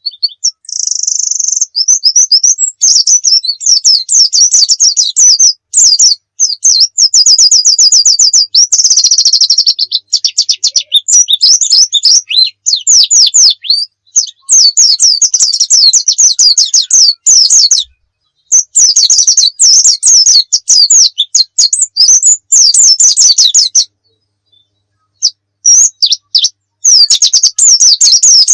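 Pleci (white-eye, Zosterops) singing vigorously in long, fast, high-pitched twittering phrases with brief pauses between them, including a pause of about a second and a half near the end.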